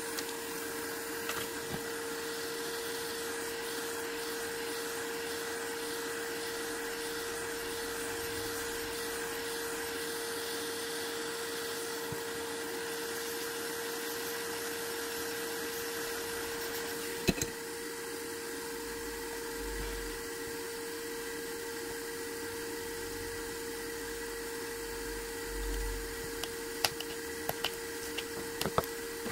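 Steady whir of a small electric blower or fan motor with a constant humming tone; a sharp click about 17 seconds in, after which the hiss eases a little, and a few light clicks near the end.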